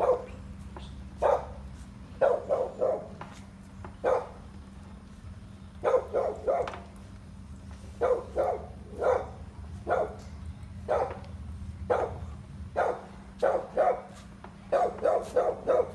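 A dog barking over and over, in single barks and quick runs of three or four. A steady low hum runs underneath.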